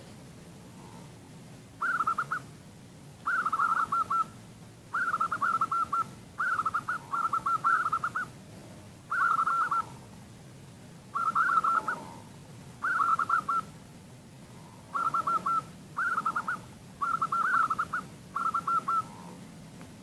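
Female zebra dove (perkutut) calling: about a dozen short, rapid trilled bursts of coos, each under a second long, coming in quick succession.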